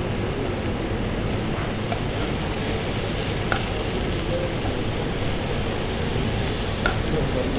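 Mixed vegetables (onion, mushroom, capsicum) sizzling steadily as they sauté in a non-stick pan, with a couple of light knocks, twice, partway through.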